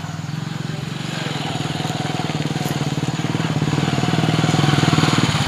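Hero Passion motorcycle's single-cylinder four-stroke engine running at a steady speed as the bike approaches, growing gradually louder; the engine note eases just before the end.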